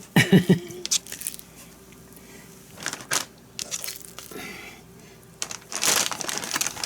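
Kitchen handling sounds while raw chicken breasts are cut: a few scattered knocks and clicks of knife and board, and a crinkling rustle about six seconds in.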